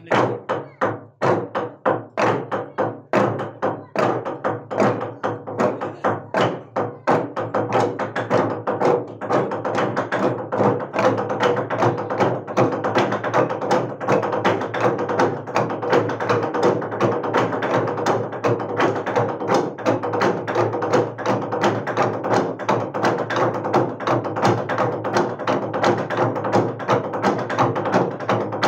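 A Naga log drum, a long hollowed tree trunk, beaten by many men with heavy wooden beaters. The spaced wooden strikes speed up until, about ten seconds in, they merge into a fast, continuous rolling beat.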